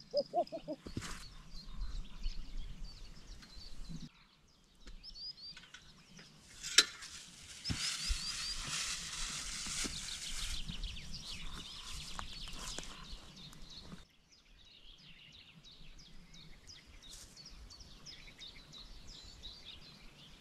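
Small birds chirping again and again over quiet outdoor background, with a sharp click about seven seconds in followed by a couple of seconds of rustling noise.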